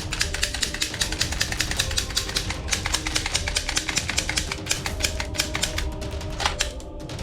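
Toy gun firing on full auto, a fast even rattle of clicks at about ten a second, with faint steady tones underneath.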